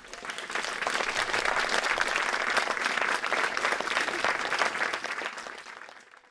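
Audience applauding, a dense patter of many hands clapping that starts at once, holds steady and fades away over the last second or so.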